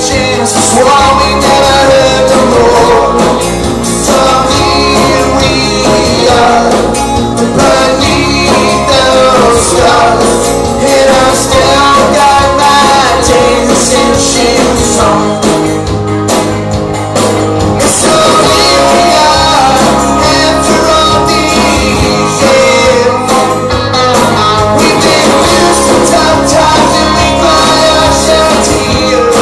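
Live band playing a song: several electric and acoustic guitars and drums under a sung lead vocal, loud and continuous.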